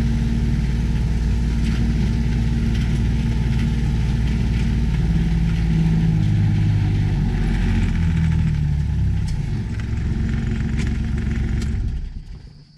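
A vehicle engine running steadily, its pitch shifting a little in the middle. It shuts off abruptly near the end.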